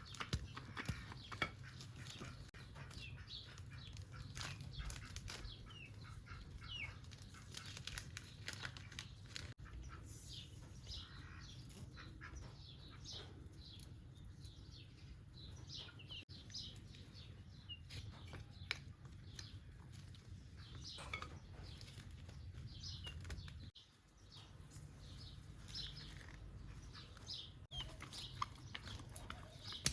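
Birds chirping in short, quick, slightly falling calls, repeated throughout, over a low steady background hum and scattered light clicks.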